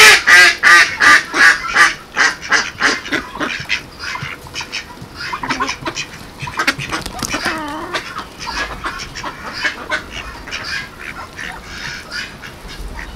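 Mallard ducks quacking in a rapid run of calls, loudest over the first two seconds, then quieter, scattered quacks.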